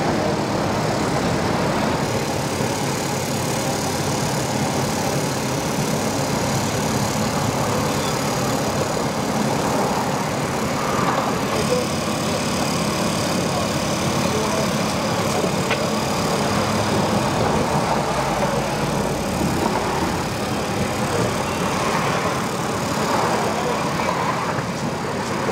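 A steady drone of idling engines and machinery.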